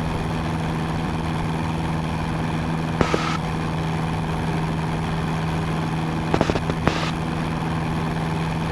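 Cessna 172N's Lycoming O-320 four-cylinder engine and propeller making a steady, even drone in flight. A short hiss comes about three seconds in, and a few sharp clicks come around six to seven seconds in.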